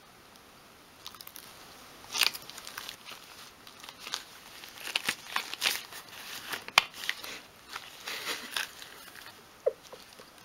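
Rustles and small clicks of latex-gloved hands handling and squeezing small plastic bottles to dispense two-part glue onto a card, with a couple of sharper clicks about two seconds in and near the middle.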